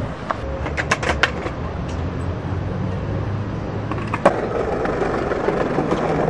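Skateboard wheels rolling on stone paving, a steady rumble with a few sharp clicks of the board around a second in and a louder knock about four seconds in.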